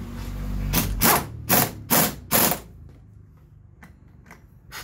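Pneumatic impact wrench firing five short bursts in about two seconds, tightening a 17 mm pulley nut on a Daelim Forte 125 scooter's belt drivetrain. Faint clicks of tool handling follow.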